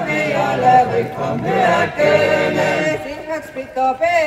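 Choir singing a Seto folk song in a chant-like style, several voices together; the fuller chorus thins out about three seconds in.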